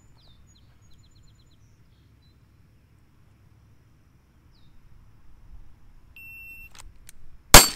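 Shot timer gives one steady high beep, just over half a second long, to start a timed pistol drill, and about a second later the first pistol shot goes off, loud and sharp. Faint bird chirps before the beep.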